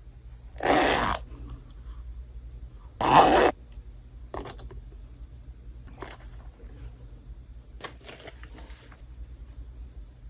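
Packaging being handled during unboxing: two loud, short rustles about two and a half seconds apart, followed by a few softer rustles and scrapes.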